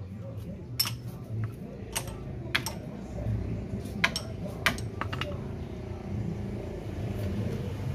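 Sharp metal clinks, about six spread through the first five seconds, as steel bolts and hand tools knock against the brake caliper and disc at the hub of a Ford EcoSport during a brake pad change, over a steady low hum.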